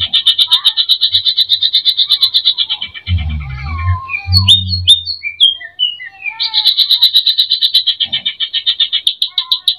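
Green leafbird (cucak ijo) singing: a rapid rattling run of high repeated notes, about eight a second. About three seconds in it breaks into varied gliding whistles and sharp notes, then the rapid run returns near the end. A low rumble and a click sound under the middle part.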